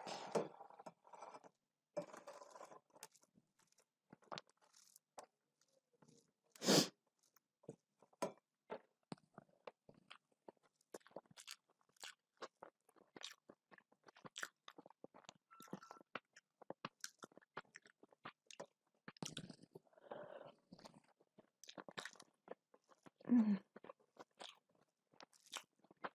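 Close-up chewing and mouth sounds of a person eating rice mixed with saag by hand: many small wet clicks and soft crunches, with one louder sharp crunch about a quarter of the way in.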